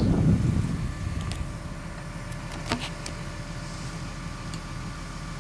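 An engine idling steadily, with a low rumble of wind or handling noise fading out in the first second and a single sharp click about three seconds in.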